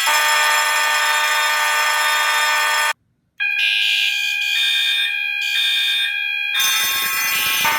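A group of about a dozen fire alarm horns and horn-strobes sounding at once, including a System Sensor SpectrAlert Advance, Wheelock 7002T, Simplex, EST and Notifier units, in a loud chord of steady tones. All cut out together for about half a second about three seconds in, then come back with some pulsing on and off, and a harsher horn joins near the end.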